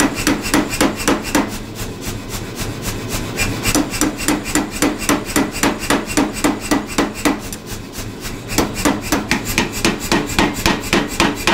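Power hammer striking rapidly and evenly, about five or six blows a second, on a hand-held round fuller pressed into red-hot leaf-spring steel on the bottom die, with a steady machine hum underneath.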